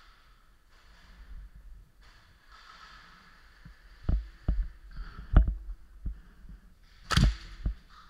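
A handful of sharp, irregular clicks and knocks over a quiet background, starting about halfway through. The two loudest come a little over a second into the second half and near the end.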